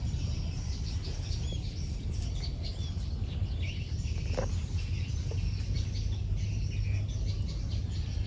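Outdoor ambience: small birds chirping in short repeated calls with a steady high insect whine, over a steady low rumble.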